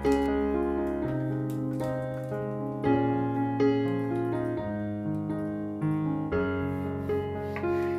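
Background piano music: a melody over held low notes.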